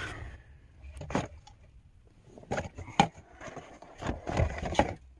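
Cardboard box and plastic phone mount being handled during unpacking: scattered rustles, scrapes and clicks, with sharper knocks about a second in, around three seconds, and twice more between four and five seconds.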